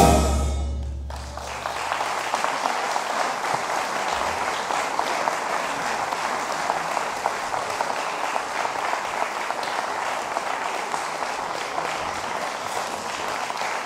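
A wind band's final brass chord breaks off at the very start, leaving a low note to die away over about a second and a half. The audience's steady applause takes over and carries on.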